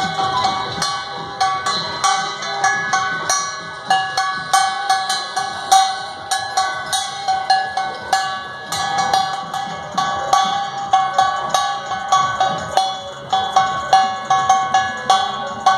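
A metal bell struck in a steady beat, about two strikes a second, each strike ringing on at the same few pitches.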